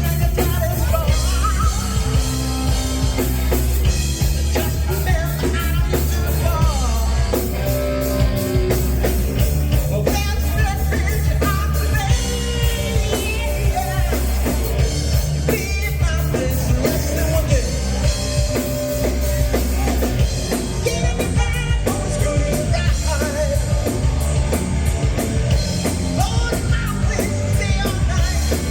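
Rock song playing: a band with drum kit and singing, loud and steady throughout.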